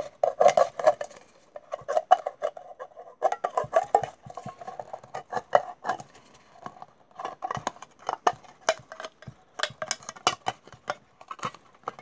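The lever-type tin opener of a British army clasp knife biting its way around the rim of an empty, dented steel tin. It gives rapid, irregular metallic clicks and scrapes over a steady ringing note.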